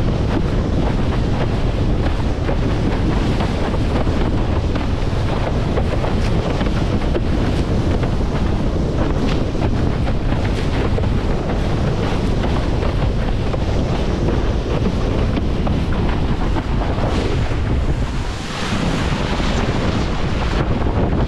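Strong wind buffeting the microphone of a windsurf rig's camera, over water rushing and splashing under a planing windsurf board in about 20 to 25 knots. About 18 seconds in the wind drops briefly, then a hissier rush of water and spray follows.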